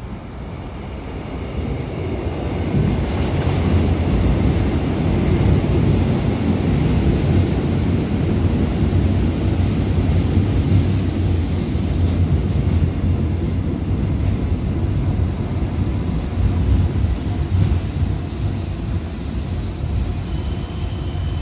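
GEC chopper-controlled electric subway train pulling into the station. A low rumble of wheels on rail builds over the first few seconds, stays strong, then eases slightly as the train slows, and a thin high whine comes in near the end.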